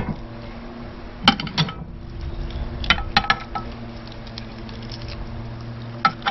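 A handful of light clinks and knocks, spaced a second or more apart, from a kitchen knife and a glass baking dish on a plastic cutting board as food is handled.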